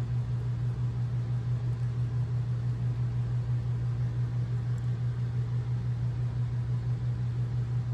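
A steady low hum with a faint even hiss above it, unchanging throughout.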